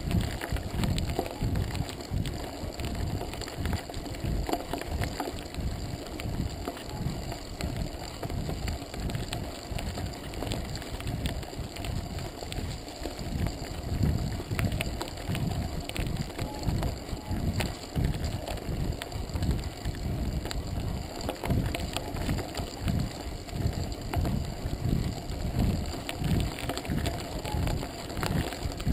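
Wind buffeting the microphone of a GoPro Hero2 while a full-suspension mountain bike rolls over a gravel forest road, with tyre crunch and many small clicks and knocks from the bike and stones.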